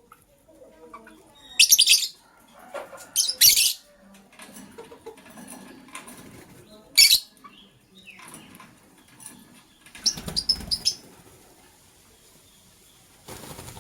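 Pet lovebirds giving short, sharp, high-pitched chirps in separate bursts, with a flurry of wing flapping and quick chirps about ten seconds in.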